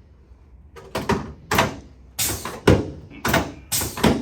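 Chiropractic adjusting table clunking during an adjustment: a run of about eight sharp thunks, roughly half a second apart, beginning about a second in.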